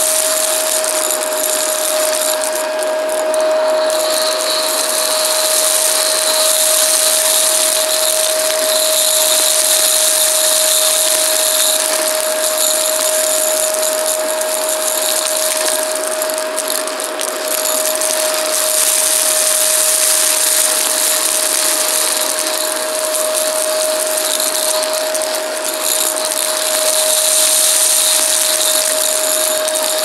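Shark upright vacuum cleaner running and sucking up crunchy debris from a rug: a steady motor whine on one pitch under an airflow hiss that swells and eases, with crunching as the debris is drawn in.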